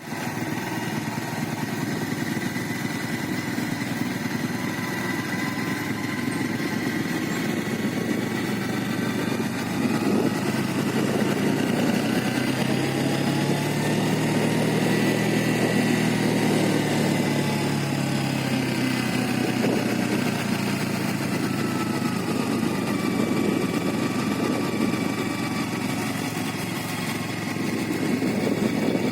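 Motor vehicle engine running steadily, with a whine that rises and then falls in pitch around the middle as it gets louder.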